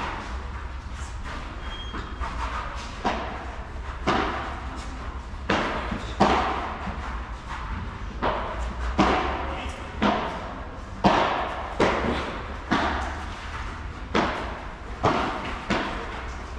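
Padel rally: rackets striking the ball and the ball bouncing off the court and walls, a sharp knock about once a second at an uneven pace, each with a short echo in a large covered hall.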